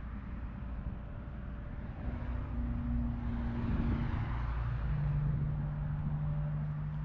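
A distant engine droning in the background over a low rumble, its hum swelling about two seconds in and settling to a lower steady pitch in the second half.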